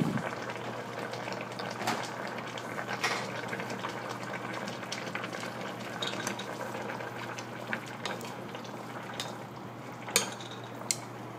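Sweet-vinegar broth bubbling at a simmer in a stainless steel pot of fried tofu, over a steady low hum. Near the end chopsticks click twice against the pot as the pieces are stirred.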